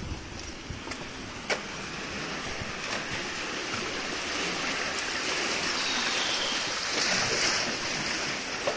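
Seawater surging and washing through a narrow rock channel, building to a louder rush about seven seconds in. A single sharp click about a second and a half in.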